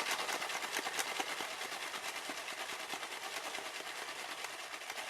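Sweets being shaken, a fast continuous rattle of many small hard clicks that stops about five seconds in.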